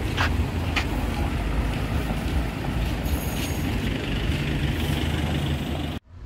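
Street traffic: a steady low engine rumble with background noise, and two short clicks in the first second. It cuts off abruptly near the end.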